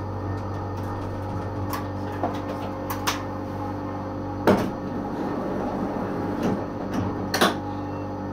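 A standing tram's onboard electrical equipment hums steadily with several steady tones, and a handful of sharp clicks and knocks from the vehicle's fittings come through, the loudest about halfway through and another near the end.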